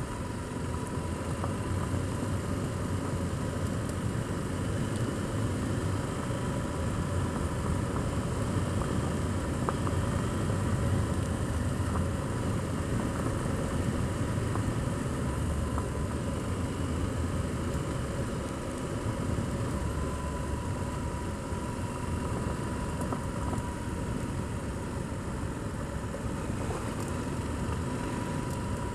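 Adventure motorcycle riding at a steady pace on a loose gravel track: the engine runs evenly under a steady rush of tyre and road noise.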